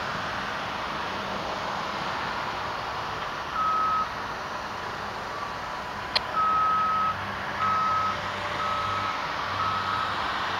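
Cessna 172 cabin with steady engine and airflow noise, while the stall warning horn sounds in short on-off blasts, about six times from a few seconds in, as the plane nears the stall in the landing flare. A sharp click about six seconds in.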